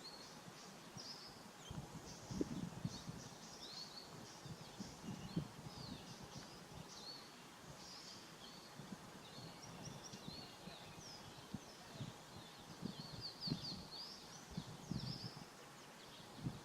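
Small birds chirping and twittering outdoors, many short quick high calls overlapping throughout. Under them, an irregular low rumble with a few bumps.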